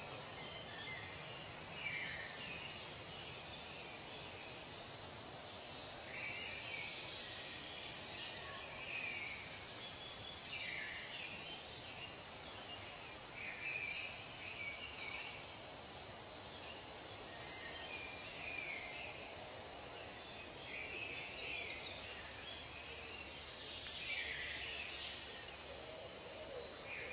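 Nature soundscape: a steady background hiss with short bird calls recurring every two to three seconds.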